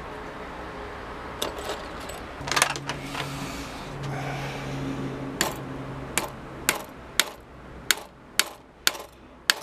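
Small steel parts of a hammer-shotgun lock handled and tapped against a metal vise during reassembly: a few clicks, then sharp metallic taps about two a second through the second half.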